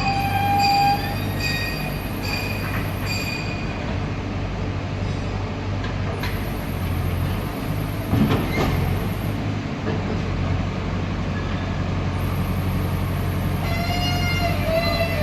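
JCB 3DX backhoe loader's diesel engine running steadily while the machine works, with high metallic squeals at the start and near the end and a couple of sharp knocks in the middle.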